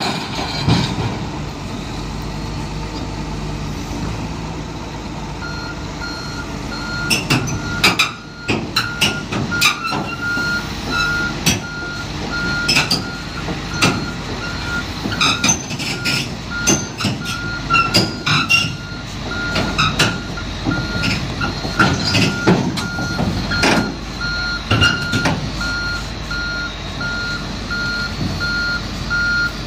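Komatsu PC360 excavator's diesel engine running while it tracks across a lowbed trailer toward the ramps. Its travel alarm beeps steadily from about five seconds in, over repeated sharp clanks of the steel tracks on the trailer deck.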